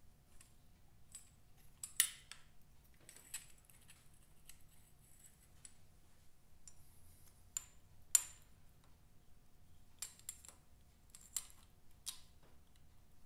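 Hand tools clinking and clicking against the metal pushrod-tube fittings and nuts on the top end of a Vincent Rapide V-twin engine: scattered sharp metallic clicks, the loudest about two seconds and eight seconds in.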